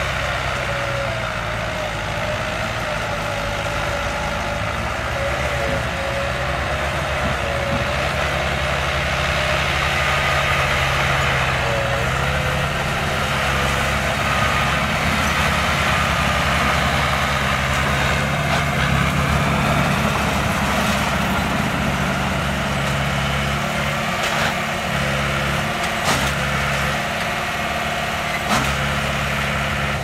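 Heavy diesel engine of earthmoving machinery running steadily, with a few sharp metallic clanks near the end.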